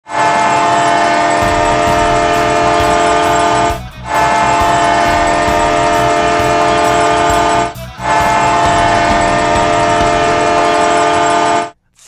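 The Bloomington Thunder's 2014–17 hockey goal horn blowing three long blasts of about four seconds each, with short breaks between them. Several steady tones sound together as a chord.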